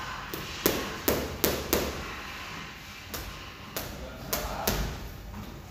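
Boxing gloves punching a free-standing punching dummy: a fast burst of four hard hits about a second in, then a slower run of lighter hits.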